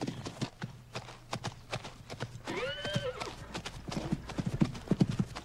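Horses' hoofbeats on grass, a quick run of uneven thuds as they trot and canter. About two and a half seconds in there is one short high call, rising then falling.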